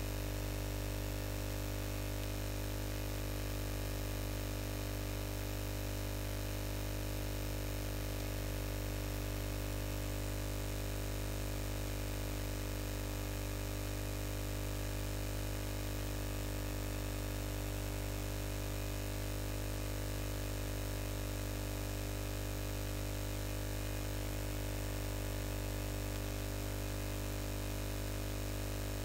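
Steady electrical hum and buzz under a constant hiss, unchanging throughout, with no keystrokes or other events heard.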